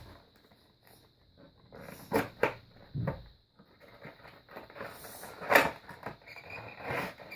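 Cardboard toy box and its plastic insert being handled and pried open: scattered sharp clicks, knocks and scrapes, with one duller thud about three seconds in.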